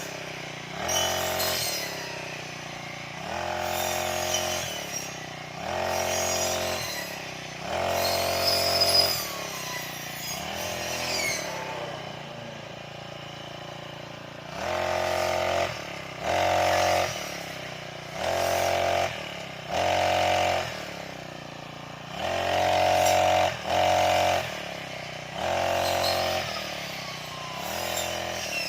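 Brush cutter engine revved up in about a dozen short bursts of one to two seconds, each rising in pitch and dropping back to a lower idle between, as the machine is used to cut grass.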